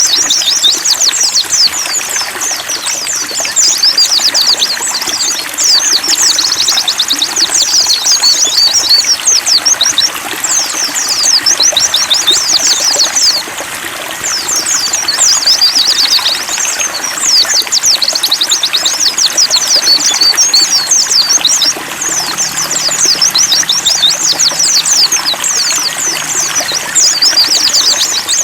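Pleci (white-eye) birds singing fast, high twittering trills almost without pause, over the steady sound of trickling water.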